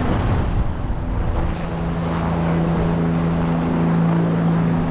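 Helicopter turbine engine and rotor running steadily, heard from inside the cockpit. A steady engine hum strengthens about a second and a half in.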